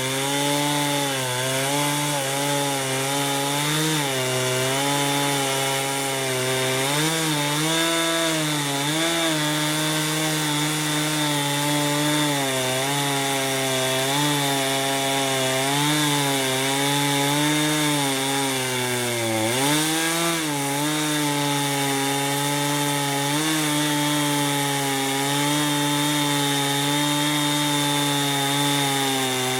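Husqvarna Rancher 455 two-stroke chainsaw with a 24-inch bar and ripping chain running under load through a long rip cut in a chainsaw mill. The engine pitch wavers steadily, dips briefly under load a little before two-thirds of the way through, then picks back up.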